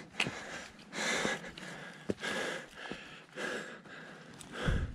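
A person's breathing close to the microphone, about one breath a second.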